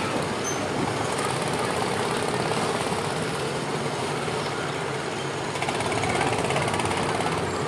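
Several small gasoline engines of Tomorrowland Speedway ride cars running together at idle and low speed as the cars creep forward in line, a steady engine drone.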